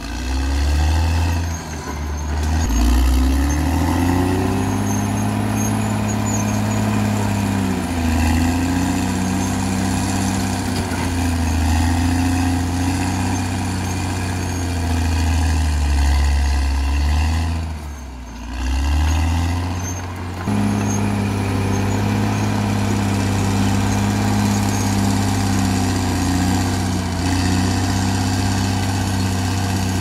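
Caterpillar D6R XL bulldozer's diesel engine working, its pitch rising and falling repeatedly as load and throttle change. It sags briefly about two-thirds of the way through, then jumps suddenly to a steadier, louder run.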